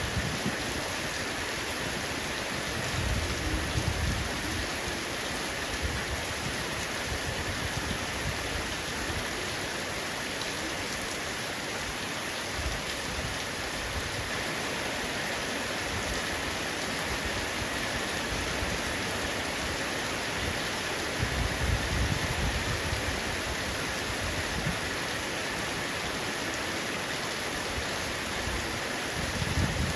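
Heavy rain falling steadily on a roof. Low rumbles swell up about three seconds in and again a little past twenty seconds.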